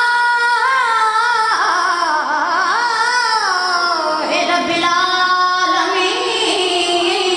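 A single high voice singing a devotional recitation in long, held, wavering notes that step between pitches.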